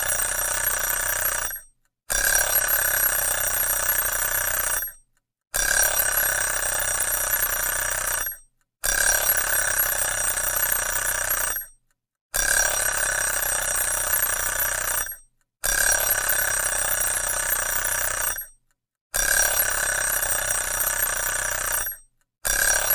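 Alarm clock ringing in repeated bursts of about three seconds, each broken off by a short silent pause before the next.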